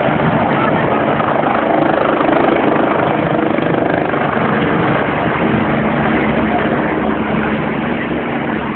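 Steady roar of a large stadium crowd, many voices blending together, easing slightly near the end.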